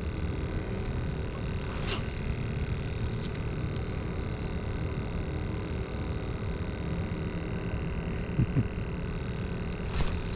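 Electric drive of a motorized fishing kayak running with a steady hum and a low rumble underneath, plus a few light clicks and a sharper click near the end.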